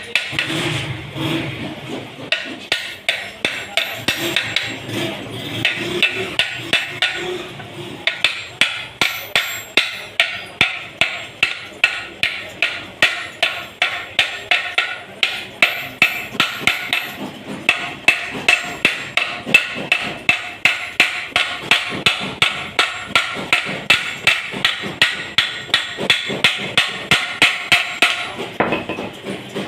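A hammer striking a car's steel swing arm and its bushes in a steady run of blows, about three a second, each with a short metallic ring.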